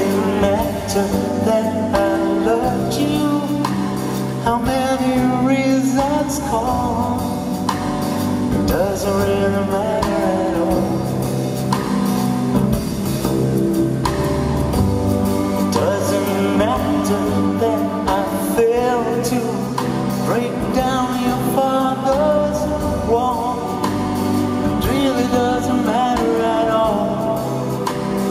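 Live music: a male singer singing a ballad into a handheld microphone over orchestral accompaniment of held chords.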